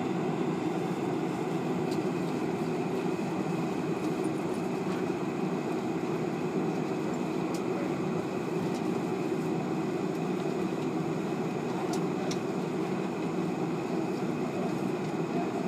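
Steady low rumble of an airliner cabin heard at a window seat on the ground, from the jet engines and cabin air running at low power, with a few faint ticks.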